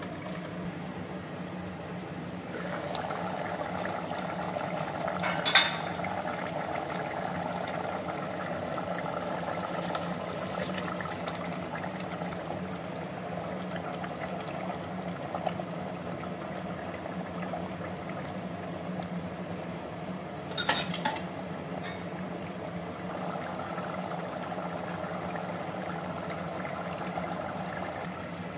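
Mutton biryani gravy boiling and bubbling in a stainless-steel pot while it is stirred with a spatula, with two sharp clinks of the utensil against the pot.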